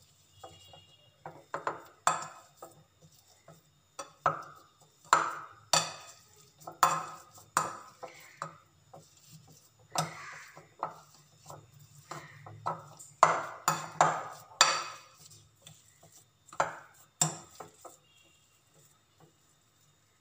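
Wire potato masher working boiled potatoes in a glass bowl: an irregular run of knocks and scrapes of metal on glass with soft squashing, falling quiet near the end.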